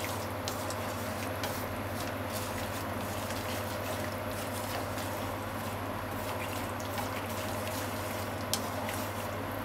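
Ground chicken simmering and bubbling in a liquid sauce in a frying pan while a spatula stirs it. A few sharp clicks of the spatula against the pan sound throughout, the loudest one near the end.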